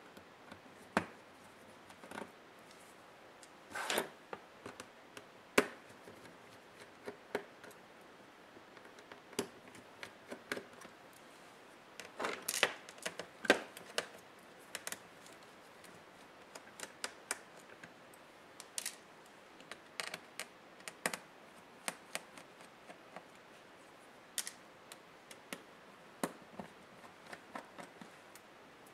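Irregular small clicks and taps of laptop parts and tools being handled during disassembly: plastic casing and small metal pieces knocking and clicking. There are a few short denser clusters, one about four seconds in and one around the middle.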